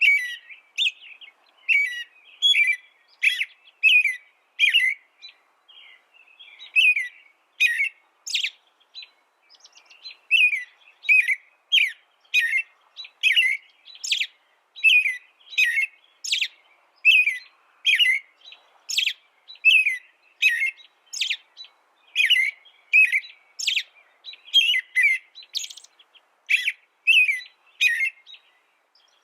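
Songbird giving short, sharp chirps over and over, about two a second, with a couple of brief pauses.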